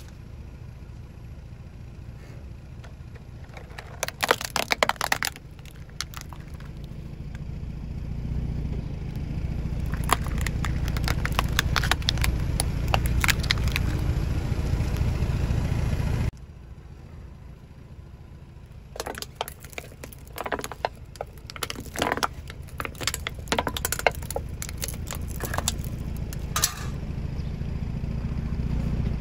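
A car tyre rolls slowly over a plastic toy truck, crushing it with bursts of sharp cracking and crunching over the low rumble of the car on asphalt. After a sudden cut, the tyre rolls over a row of thin chrome-coloured plastic discs with a run of crackling snaps.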